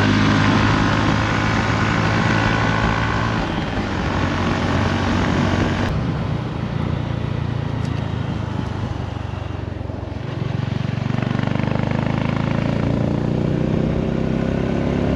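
Honda CB150 motorcycle engine running under way, with wind rushing over the microphone. The engine eases off for several seconds around the middle, then picks up again.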